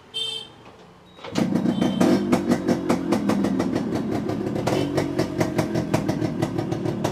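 Yamaha RX-series single-cylinder two-stroke motorcycle engine starting up about a second in, then running with a crackly, uneven beat.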